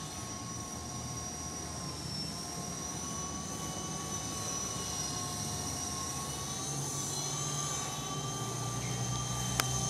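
FX052 electric RC helicopter flying overhead: a steady high-pitched whine of its motor and rotor that wavers slightly in pitch. A single short click sounds near the end.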